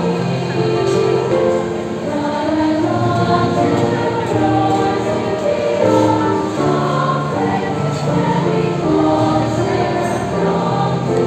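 Choir of mixed voices singing a religious song in harmony, several parts holding long notes together and changing chords every second or so.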